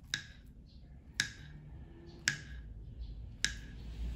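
Kitchen knife slicing a banana on a wooden cutting board: four sharp taps, about one a second, as the blade cuts through and strikes the board.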